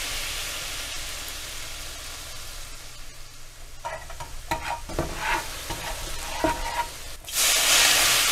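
Sizzling and crackling like food frying in hot oil, with scattered pops in the middle and a louder rush of hissing near the end: an intro sound effect.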